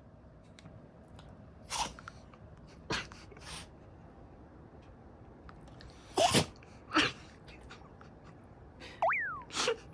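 Toy poodle sneezing repeatedly: short, sharp sneezes a second or more apart, the loudest two just past the middle. Near the end a brief high squeak rises and falls.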